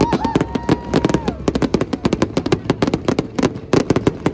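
Aerial display fireworks bursting in a rapid barrage: sharp bangs and crackles several times a second, overlapping with no break.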